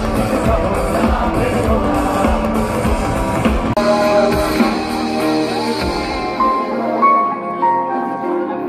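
Live concert music heard from within the audience: a full band with drums and singing. A little under four seconds in it changes abruptly to a softer passage, where the drums drop out and held melodic notes carry on.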